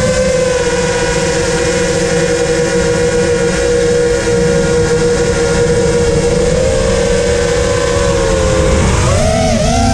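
FPV racing drone's electric motors and propellers whining at a steady pitch, heard through the drone's onboard camera. Near the end the pitch quickly rises and falls a few times as the throttle changes.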